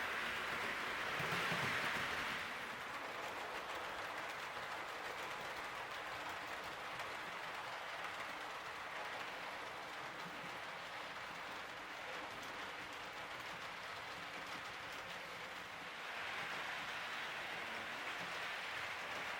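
H0 scale model train running on the layout's track, a steady rolling hiss that swells at the start and again near the end as the train passes close.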